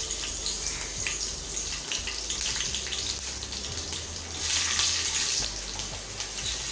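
Green chillies sizzling in hot oil in a kadhai, a steady hiss that swells a little past halfway.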